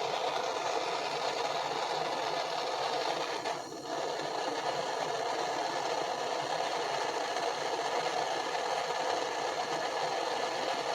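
Propane torch flame burning steadily with an even hiss, heating a fluxed copper pipe joint before the solder is fed in; the hiss dips briefly about four seconds in.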